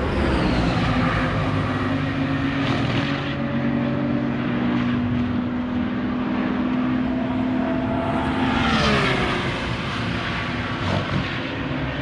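Track-day cars' engines running at high revs on the circuit, a steady drone. About three-quarters of the way through, the pitch falls as a car passes by.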